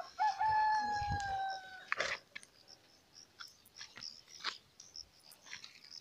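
A rooster crowing: one long, slightly falling call lasting about a second and a half, followed by faint scattered clicks and rustles.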